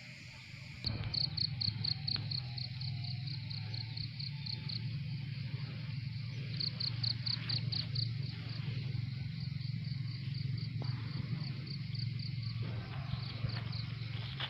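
An insect chirping in a fast pulsing rhythm, about seven high pulses a second, in runs of a few seconds with pauses between, over a steady low hum.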